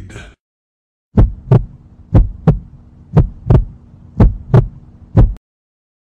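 Heartbeat sound effect: low double thumps, lub-dub, about once a second, four pairs and then a last single beat, over a faint steady hum. It starts about a second in and cuts off suddenly near the end.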